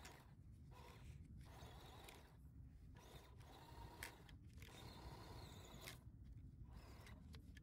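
Near silence outdoors: a faint low rumble, with the faint whine of a small RC crawler's electric motor and gears as it climbs, and a single click about four seconds in.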